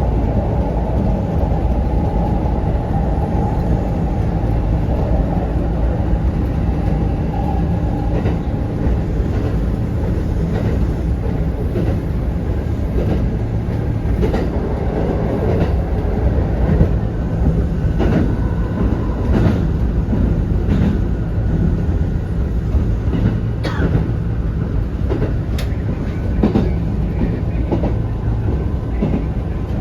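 Kintetsu 1810 series electric train running: a steady low rumble with a whine that fades out in the first several seconds, then wheels clacking over rail joints with sharp clicks.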